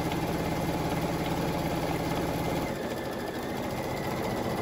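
Brother Luminaire XP1 embroidery machine stitching at full speed, 1050 stitches per minute, a fast, even needle chatter. About two and a half seconds in the sound changes as its low hum drops away.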